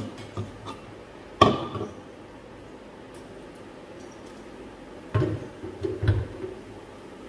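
Kitchen utensils knocking and clinking: one sharp clatter about a second and a half in, then a few more knocks near the end as a stainless-steel mixer-grinder jar is handled and set onto its base.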